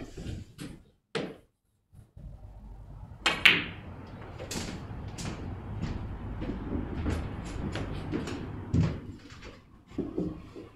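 Snooker balls being played: a few sharp clicks of cue on cue ball and ball on ball in the first second or so, then a louder knock with a short ring about three and a half seconds in, followed by a run of lighter clicks and knocks.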